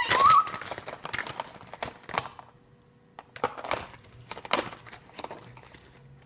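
Small plastic fidget toys clicking and clattering irregularly as someone rummages through them by hand, with a lull near the middle. It opens on the tail of a short vocal 'oh'.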